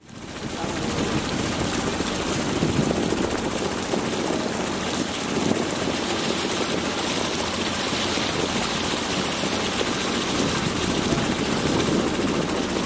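Motorboat engine running steadily, heard from on board, mixed with a rush of wind and water. The noise rises quickly in the first second.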